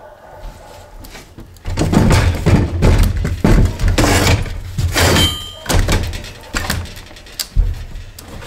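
Cordless reciprocating saw cutting into the plywood subfloor, running rough and chattering from about two seconds in until nearly six seconds, then a few separate knocks.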